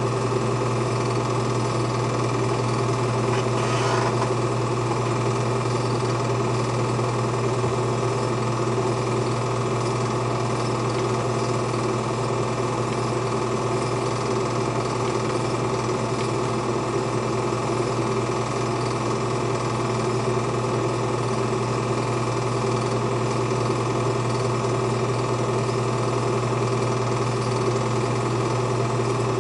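Film projector running steadily: an even motor hum with the fast, rhythmic clatter of the film being pulled through the gate.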